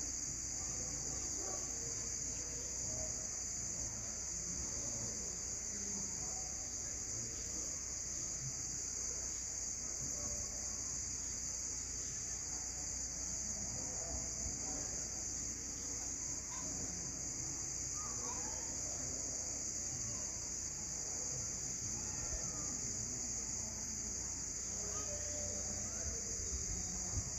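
Evening chorus of insects: a continuous high-pitched shrill drone, unchanging throughout, with faint scattered chirps beneath it.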